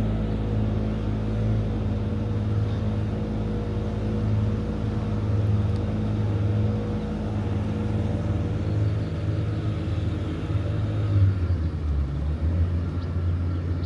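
Motorboat engine running steadily with a low drone; its note drops slightly about eleven seconds in.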